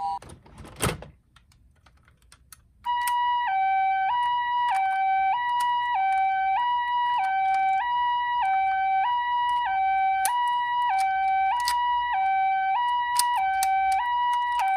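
A sharp plastic click about a second in, then, from about three seconds in, a toy ambulance minicar's electronic Japanese-style "pee-poh" siren alternating evenly between a higher and a lower tone, each held about half a second, with light clicking over it.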